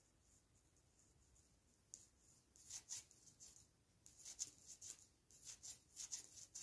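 Faint clicks and scratches of 3.5 mm knitting needles working stitches, in quick irregular runs from about two seconds in.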